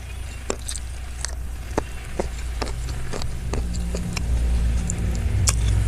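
Close-up eating sounds: scattered wet mouth clicks and chewing, about two a second. Under them runs a low steady rumble that grows louder in the second half.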